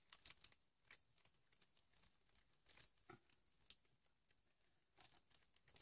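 Near silence, with faint, scattered soft taps and rustles of a hand dabbing and pressing on a paper collage page.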